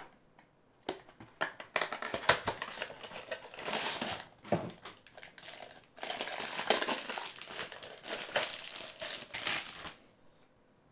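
Packaging crinkling and rustling as a prize cup is unwrapped by hand, in two stretches with a short lull around the middle, stopping about a second before the end.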